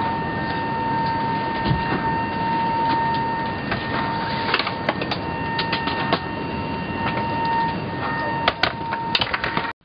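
Steady airliner cabin noise with a thin, steady whine, and knocks and thuds from about four seconds in as a bag is shoved into an overhead bin, the sharpest clatter near the end.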